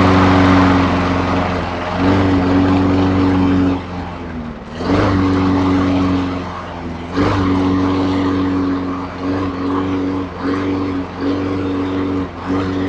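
Craftsman push mower's 6.5 hp Briggs & Stratton engine running unevenly just after catching on a hard start. It nearly dies about four seconds in and again about seven seconds in, picking back up each time, then stumbles with a few shorter dips near the end.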